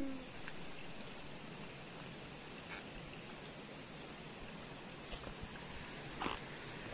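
Steady high-pitched chorus of insects, with a faint knock about six seconds in.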